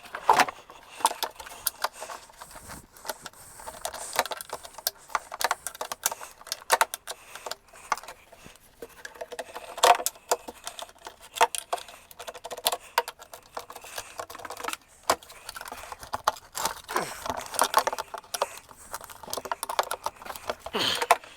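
Hand tools and metal parts clinking, clanking and rattling in irregular sharp clicks, some with a brief ring, as bolts are worked loose on the three-wheeler's front forks.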